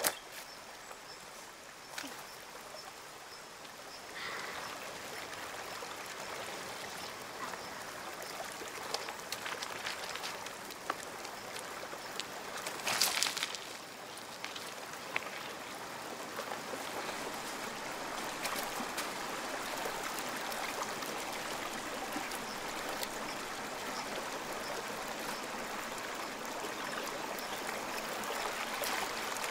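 Stream water running and trickling over stones, steady and growing a little louder, with scattered clicks of stones underfoot and one brief louder noise about halfway through.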